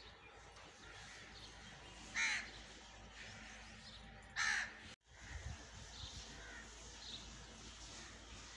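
A bird calling twice outdoors, two short harsh calls about two seconds apart, over faint high chirping in the background.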